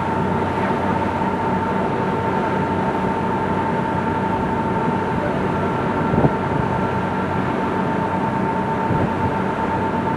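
Cruise boat's engines running steadily underway, a constant drone with a steady whine, with a single brief knock about six seconds in.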